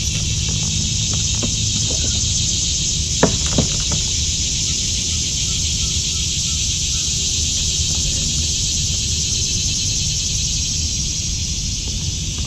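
Steady, loud chorus of summer insects shrilling continuously, over a low wind rumble on the microphone. Two sharp clicks or knocks stand out a little over three seconds in.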